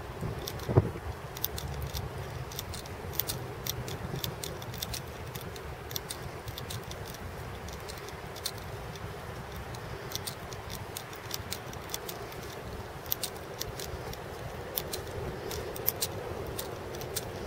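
Scattered light clicks and rattles over a low steady rumble of wind and handling noise, with one sharper knock about a second in.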